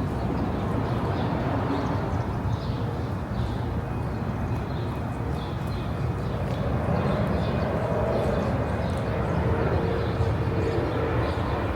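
Steady outdoor city ambience: a low rumble of road traffic, with a faint steady hum coming in about halfway through.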